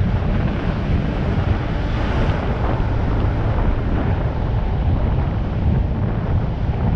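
Wind buffeting the microphone of a camera on the roof of a moving vehicle: a steady, loud low rumble, with road and traffic noise underneath.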